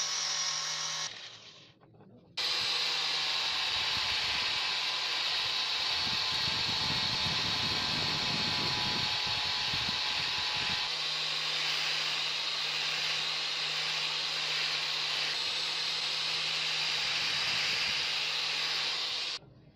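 Electric angle grinder with an abrasive disc running at speed and sanding the steel of a pruner, with a steady motor whine. It stops about a second in and starts again sharply a second later. A rougher grinding noise from the disc pressing on the metal comes in the middle, and the grinder cuts off just before the end.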